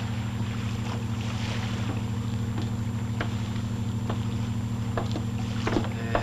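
A fishing boat's engine running steadily, a low even throb, with a few light knocks scattered through.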